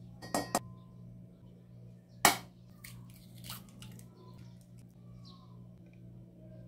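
Plastic scoop knocking twice against a stainless steel mixing bowl, then a single sharp crack of an egg knocked on the bowl's rim, followed by a few light clinks, over a steady low hum.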